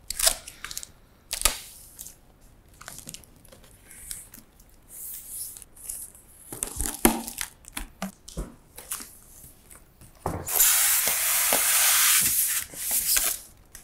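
Cardboard monitor carton being opened by hand: scattered knocks and rustles of the flaps and taped tabs, then a loud rasping scrape lasting about two and a half seconds near the end as the carton slides off the styrofoam packing.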